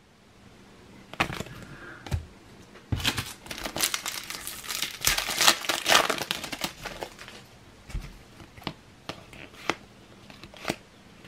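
Plastic wrapper of a Topps Cricket Attax trading-card pack being torn open and crinkled. The crinkling is densest from about three seconds in for several seconds, with lighter rustles and clicks before and after as the cards are pulled out.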